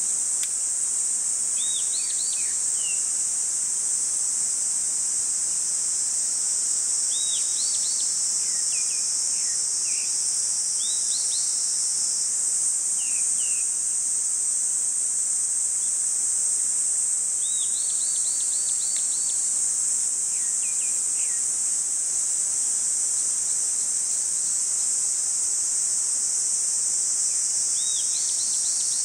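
Steady high-pitched insect chorus, with a bird's short chirps breaking in now and then in small clusters.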